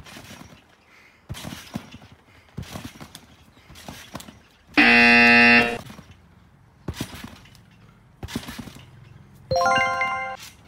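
Trampoline bouncing, with a thud at each landing on the mat. About five seconds in, a loud, harsh buzzer sound effect lasts about a second, and a short bright chime sounds near the end.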